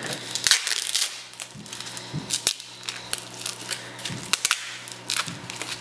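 Crinkling and crackling of a metallic anti-static plastic bag being handled and opened, a run of irregular sharp crackles.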